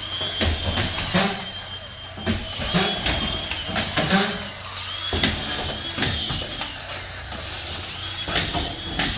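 Drywall screw gun whining in short runs several times, spinning up and dropping off as screws are driven, among sharp knocks and clatter of drywall sheets being hung.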